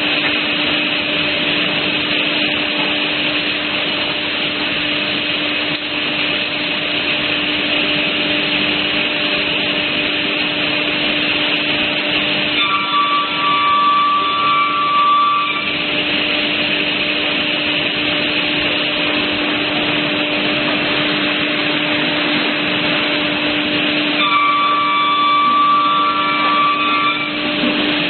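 CNC panel saw running with a steady hum and rushing noise. Twice, about 13 and 25 seconds in, a whine lasting about three seconds rises over it as the saw cuts through a wood panel.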